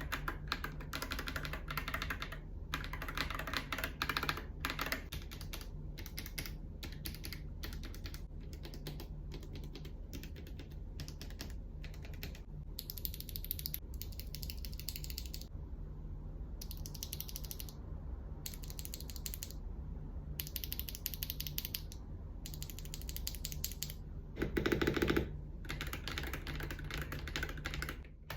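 Continuous fast typing on a Yunzii X75 mechanical keyboard fitted with Akko V3 Cream Yellow Pro linear switches and frosted keycaps: a dense run of key clacks with brief pauses, and a short louder, deeper burst of keystrokes near the end.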